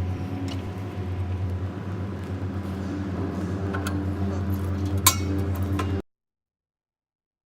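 Light metallic clinks and clicks over a steady low hum, with one sharp clink about five seconds in; the sound cuts off abruptly about a second later.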